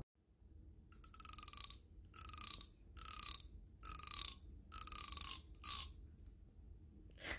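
Rasping clicks from a small object worked by hand: five quick strokes about a second apart, each falling slightly in pitch, then a shorter sixth stroke.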